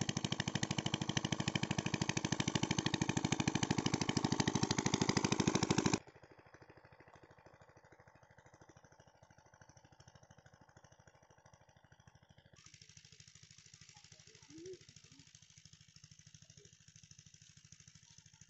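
Small engine-driven water pump running with a fast, even beat as it pumps water out of the pond through its hose. It is loud for about six seconds, then cuts suddenly to a much fainter, more distant running.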